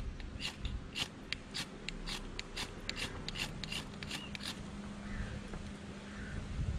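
Pocket knife blade scraped down a flint rod to throw sparks into dryer-lint tinder: a rapid run of short, sharp scrapes, about three a second, that then stops.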